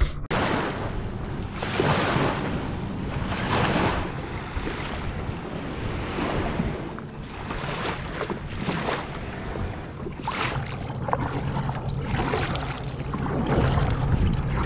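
Water splashing and lapping around a kayak, with wind buffeting the microphone; the splashing surges every second or two.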